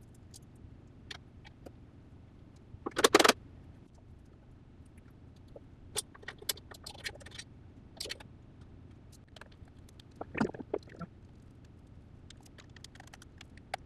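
Hands working on air-cooled VW engine tin: scattered light clicks, taps and scrapes of sheet metal being handled and fitted, with a louder rasping scrape about three seconds in and another near ten seconds, over a low steady hum.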